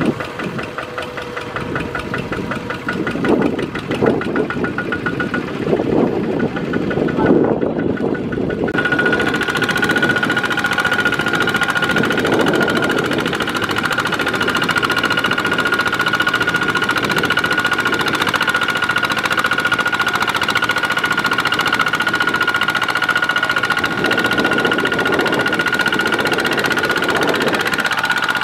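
Single-cylinder diesel engine of a Kubota RT140 two-wheel walking tractor working under load while it drags a loaded trailer through deep mud. About nine seconds in the engine grows louder and steadier, and a steady high whine joins it.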